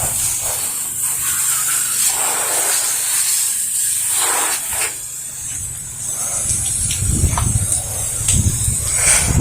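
Steady hiss of a pressure-washer spray nozzle applying a 1% soft-wash mix. Gusts of wind rumble on the microphone from about two-thirds of the way in.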